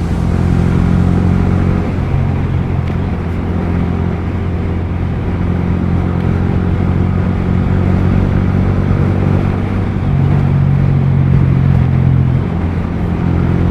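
Yamaha R15 V3's single-cylinder engine running through an aftermarket R9 exhaust while riding. The engine note holds steady, easing off and picking up again a few times.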